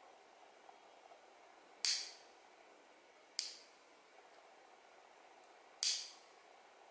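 Metal nail clipper cutting fingernails: three sharp clips, the second a little quieter and shorter than the others.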